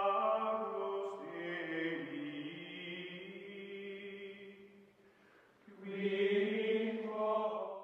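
Background music of long, held, choir-like tones, with a dip about five seconds in; the music swells again and then cuts off abruptly at the end.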